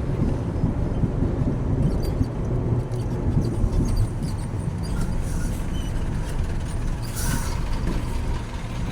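Truck engine running with road noise, heard from inside the cab while driving, with a short hiss about seven seconds in.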